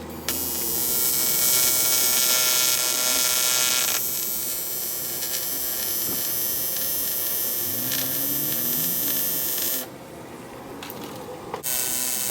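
Electric welding arc, a steady buzzing hiss in two runs: it stops about ten seconds in and starts again near the end.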